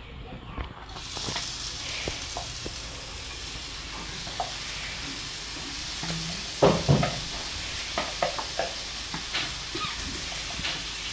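Beef for meat pie filling sizzling in a hot pot, with a steady hiss that starts about a second in, while a spoon stirs it with scattered scrapes and knocks against the pot.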